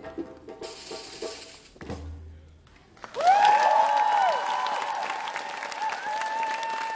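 Last few djembe drum strokes, a short pause, then an audience bursting into applause with loud whooping cheers about three seconds in.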